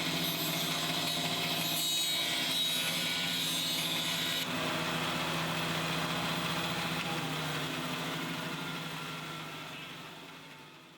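Power saw running and cutting through a boot, with a steady motor hum under a hissing cutting noise. The cutting noise stops abruptly about four and a half seconds in, leaving the hum, which fades away near the end.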